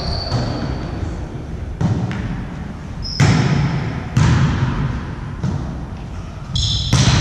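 A volleyball being struck during a rally, about four sharp slaps roughly a second apart, the middle two the loudest, echoing in a sports hall. A few short high squeaks from sneakers on the hall floor.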